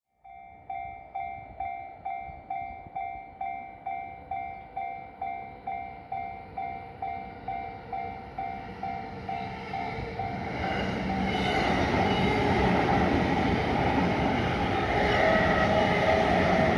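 Japanese level-crossing warning bell striking just under twice a second. From about ten seconds in, a Yamanote Line E231-series electric train approaches and runs through the crossing, and its growing running noise becomes the loudest sound and covers the bell.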